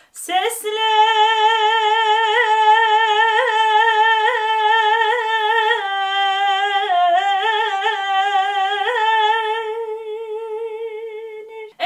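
A woman singing an uzun hava, the free-rhythm Turkish folk long song, unaccompanied. She holds one long note decorated with quick upward flicks in pitch, steps down to a lower note about six seconds in, rises back about nine seconds in, and fades near the end.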